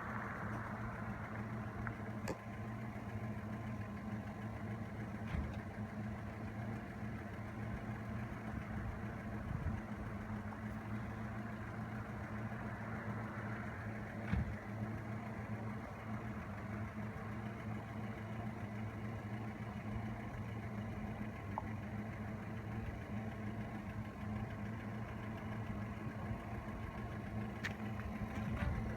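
Moskvich 426's four-cylinder petrol engine idling steadily, an even low hum.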